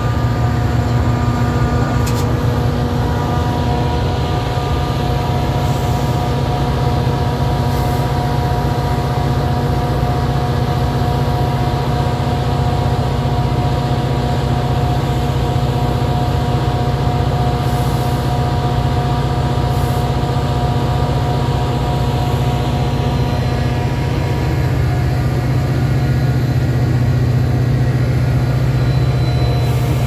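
Metra EMD F40PH diesel locomotive with a 16-cylinder two-stroke engine, running close by: a loud, steady low drone with several steady higher tones above it. A few short clicks come through.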